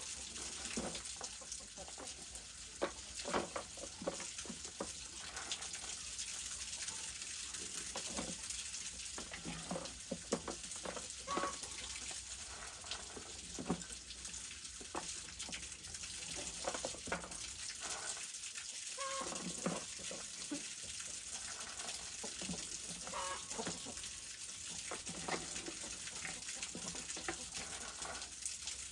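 A few short chicken clucks over a steady hiss, with scattered clicks and knocks.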